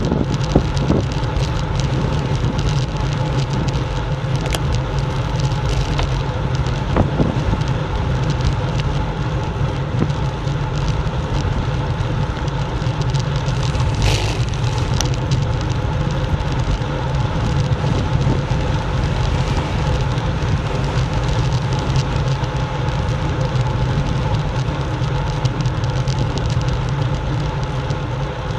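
Wind rushing over the microphone of a bike-mounted action camera, mixed with the steady rumble of bicycle tyres on a rough lane during a fast downhill, with occasional sharp knocks from bumps in the road surface.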